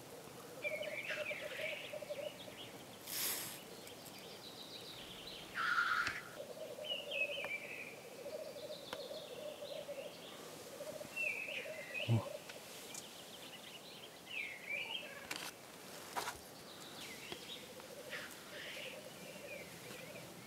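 Black grouse cocks displaying at a lek: a continuous bubbling, cooing rookoo song runs under everything, broken several times by loud hissing sneeze calls and short higher calls. A single sharp knock sounds about halfway through.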